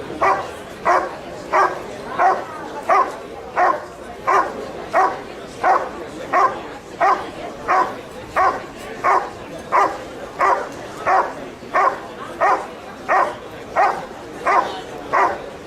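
German Shepherd dog barking steadily and rhythmically, about three barks every two seconds, each bark of even strength.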